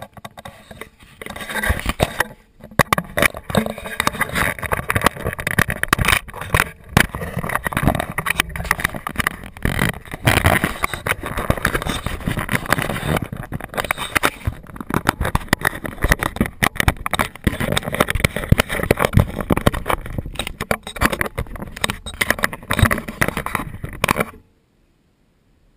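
Traxxas Slash RC truck driving over asphalt, heard from a camera mounted on the truck: a loud, dense rattle of road noise and many knocks and bumps. The sound cuts off suddenly near the end.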